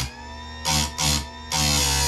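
Electric bench-mounted chainsaw chain grinder running with a steady whine, its wheel grinding the steel cutter teeth of the chain in harsh bursts: two quick touches just under a second in, then a longer grind from about halfway.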